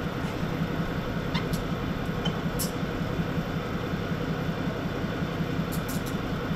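A steady low engine hum, with a few brief faint clicks.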